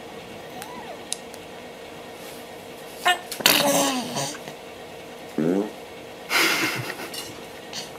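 A baby making a few short, loud bursts of sound about a second apart from three seconds in: voiced squeals and breathy, sneeze-like bursts.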